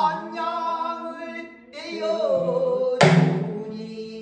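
A man singing pansori in a sliding, bending voice, with a short break about two seconds in and one loud sharp knock about three seconds in.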